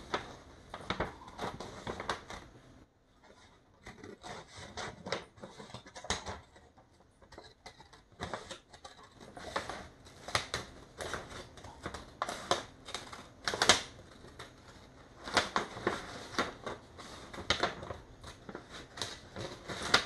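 A paper cutting template being cut out: an irregular run of sharp snips and paper rustles, with brief quieter gaps.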